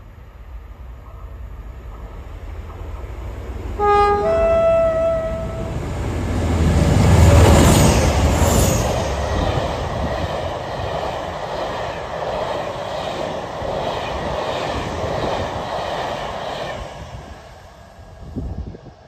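A pair of Class 47 diesel locomotives pass at speed with a train of coaches. About four seconds in, the horn sounds two notes, low then high. The Sulzer V12 engines grow loudest as the locomotives go by, then the coach wheels clack steadily over the rail joints for several seconds before the train fades away.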